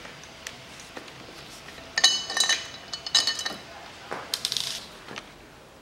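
Steel hand tools clinking: a long socket extension with a Torx bit knocking against metal, with two bright ringing jingles about two and three seconds in and a softer scrape a little later.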